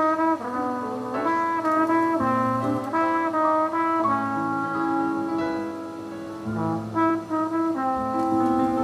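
Brass-led music, with trumpet- and trombone-like held notes in a changing melody, playing through the Centrex by Pioneer KH-767 stereo receiver.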